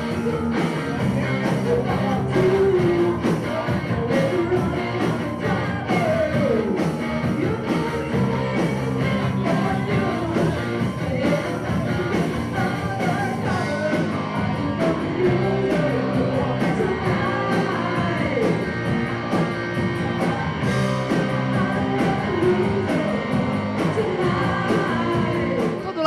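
Live rock band playing: a woman singing over electric guitar, bass and drums in a steady rock beat.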